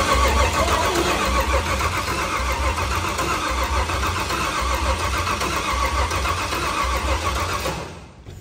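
Starter motor cranking a GM LS V8 on its first start attempt, turning it over steadily with an even low pulsing and winding down about eight seconds in. The engine does not fire: there is no spark from the ignition, and no fuel has been put in yet.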